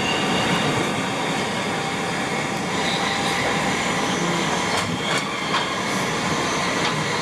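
Electric commuter train heard from inside the passenger car, rolling along with a steady running noise. A few light clicks come about five seconds in.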